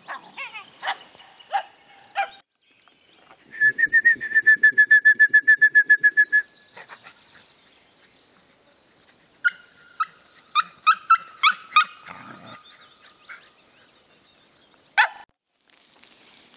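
Small dogs yipping and barking in excited bouts. The bouts include a fast, even run of high yips for a few seconds near the start, a flurry of sharp yips about ten seconds in, and a single yelp near the end.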